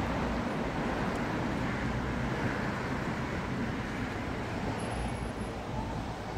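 Steady hum of road traffic, a continuous wash of passing vehicles with a low rumble, with no clear animal calls above it.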